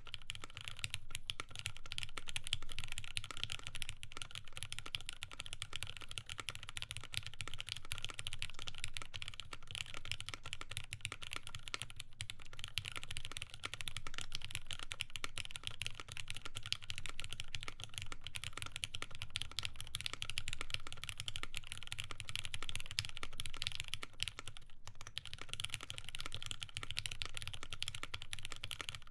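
Continuous fast typing on a mechanical keyboard with lubed linear Cherry MX Black switches, a polypropylene plate and GMK keycaps.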